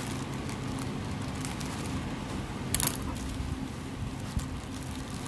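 Packing tape and plastic packaging being handled, making short crackles and rustles, with a sharper crackle about halfway through. A steady low hum runs underneath.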